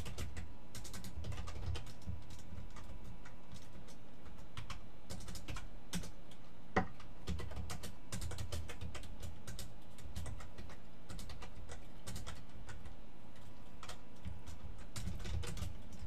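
Typing on a computer keyboard: a run of irregular keystrokes, with one sharper, louder key strike about seven seconds in.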